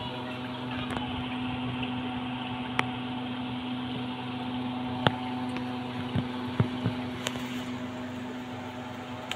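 A machine running with a steady hum, with a few sharp clicks and knocks over it, the loudest about five seconds in.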